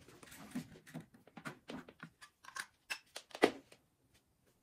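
Hands handling parts at a 3D printer: a run of light, irregular clicks and rustles, the loudest about three and a half seconds in, stopping shortly after.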